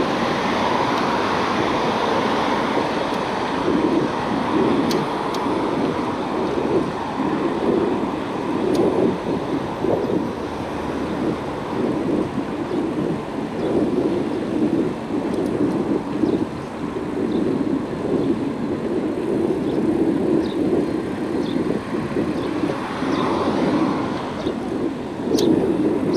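Wind and road noise from a bicycle ride along a roadside bike lane: a steady, swelling rush on the camera's microphone, with car traffic on the road alongside and a few faint clicks.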